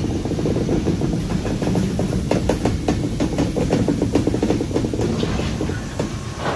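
Loaded lumber flatcars rolling slowly past on the rails: a steady rumble of wheels on track with a run of quick clicks and clanks through the middle.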